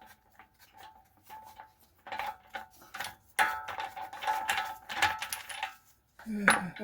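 Hand wrench ratcheting in quick runs of clicks, with metal clinking, as the lug nuts come off a front wheel. The clicks are thickest from about two seconds in.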